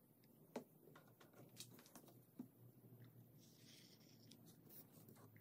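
Near silence with a few faint small clicks and taps, the sound of handling a wooden workpiece while squeezing white glue from a plastic bottle along a wooden rail; a brief faint hiss past the middle.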